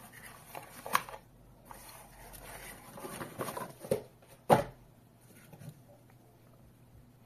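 Handling noise from unpacking a small plastic thermal printer and its cardboard box: rustling and a few knocks, the loudest a sharp knock about four and a half seconds in.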